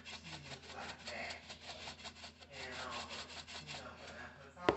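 A container of ground black pepper shaken rapidly over a bowl of corn, making a dense scratchy rattle of quick strokes. A sharp knock near the end.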